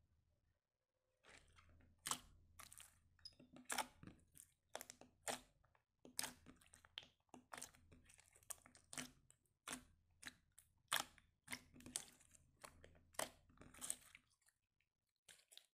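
Soft blue slime being squeezed and kneaded by hand, making an irregular run of short, wet clicks and pops that starts about a second in and thins out near the end.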